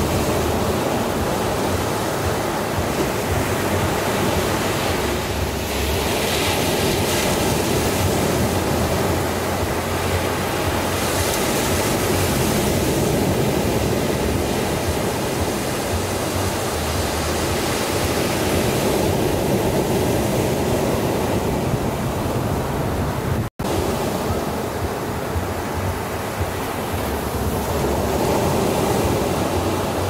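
Surf breaking and washing up on a sandy beach: a continuous rushing hiss of waves that swells and eases gently. The sound cuts out for an instant about two-thirds of the way in.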